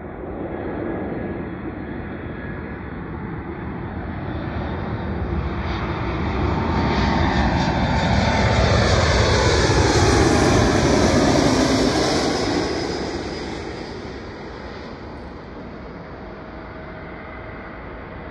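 Jet airliner on landing approach passing close by: its engine noise swells to a peak about ten seconds in, falls in pitch as it goes past, then fades.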